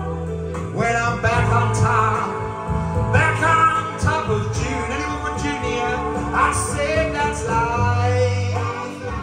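Music: a man singing into a microphone over a recorded backing track, played loud through a PA system.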